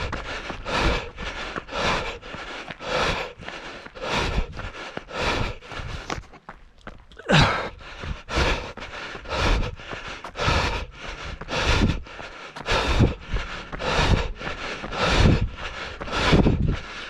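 A trail runner's heavy, rhythmic breathing, with hard exhalations coming in a steady beat. There is a short pause about six seconds in, followed by a voiced gasp.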